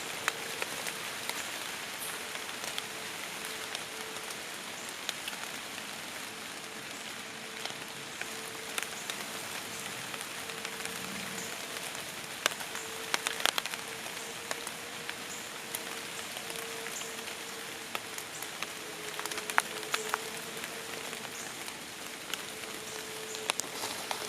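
Light rain pattering on tree leaves, a steady hiss broken by scattered sharp drips of individual drops. A steady hum runs underneath.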